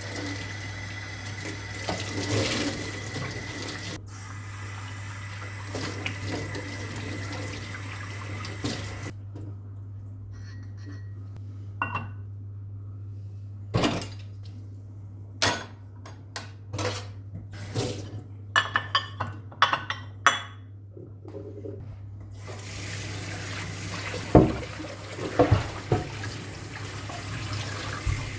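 A tap runs into a sink, then is shut off after about nine seconds. A series of sharp clinks and knocks of dishes and utensils follows, and the tap runs again near the end.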